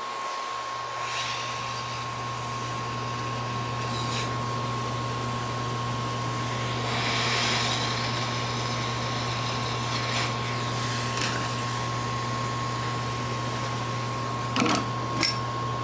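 Hot air rework station's blower running with a steady hum and hiss, switching on just after the start while resistors are lifted and placed on a logic board. Two sharp clicks near the end.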